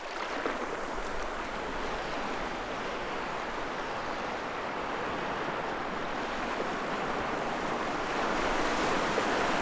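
Ocean surf: a steady rush of breaking waves and churning foam, swelling a little near the end.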